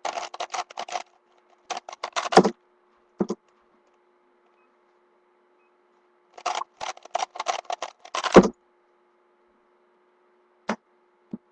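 3x3 Rubik's cube being turned at speed through the R U R' U' sequence: two runs of rapid clicking from its layers, each ending in a heavy thump. Two single clicks follow near the end.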